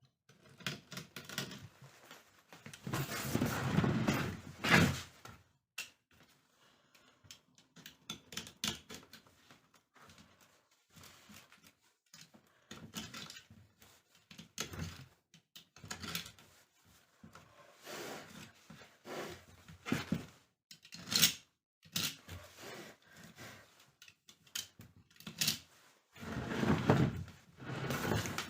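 Hand work on a rattan chair: irregular knocks and clicks, with two longer, louder noisy stretches about three seconds in and near the end.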